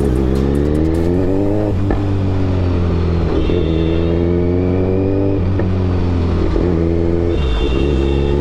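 Kawasaki Z900's inline-four engine accelerating through the gears: the pitch climbs, then drops at each of about three upshifts. A few exhaust pops and crackles come in the first second.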